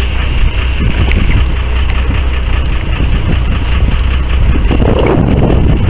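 Steady low hum of a fishing boat's engine, with wind buffeting the microphone.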